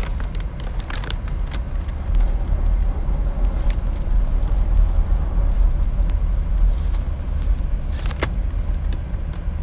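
Steady low rumble of a car heard from inside the cabin, with a few light clicks and a sharper click about eight seconds in.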